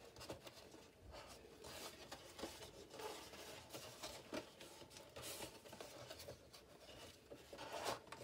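Faint rustling and light taps of card being handled on a tabletop, with a few small clicks.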